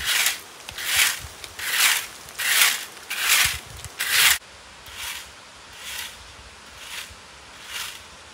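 Repeated scraping strokes of hand work, a little more than one a second. The level drops suddenly about four seconds in, and the strokes carry on softer at about one a second.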